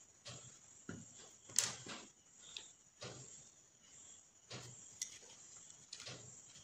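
Colour paper and scissors being handled: irregular rustles and light clicks, the sharpest about a second and a half in.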